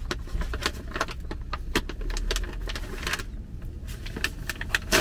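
Crinkly plastic snack bag crackling and rustling as it is pulled, twisted and bitten at in an effort to tear it open, with a louder crackle near the end.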